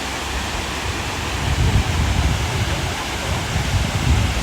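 Steady rushing noise of a waterfall, with low rumbling wind buffets on the microphone from about a second and a half in.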